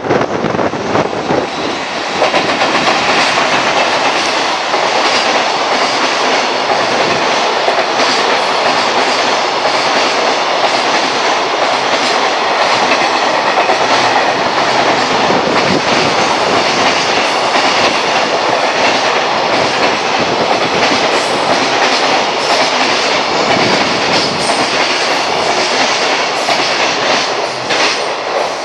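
Long container freight train hauled by an EF210 electric locomotive passing at speed: a steady loud rush with the wheels clattering over rail joints, growing louder about two seconds in as the locomotive reaches the microphone, then the wagons streaming by.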